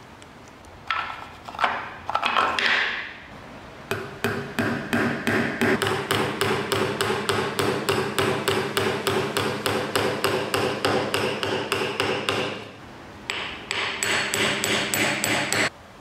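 A small hammer tapping a tiny nail or pin through a metal strip into a wooden drawer, in quick light blows about five a second. It stops briefly, then a second, brighter run of taps follows near the end. Before the hammering, a couple of short wood-on-wood scrapes.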